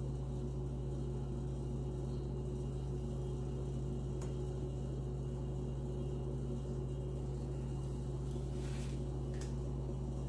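A steady low mechanical hum, like a running appliance or fan, holds at one pitch throughout. A couple of faint light knocks come near the end.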